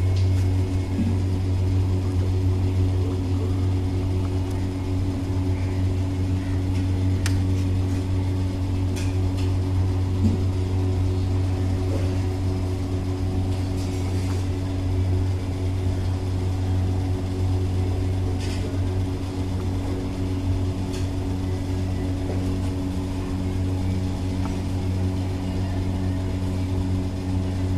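A steady low mechanical hum, with a few faint clicks scattered through it.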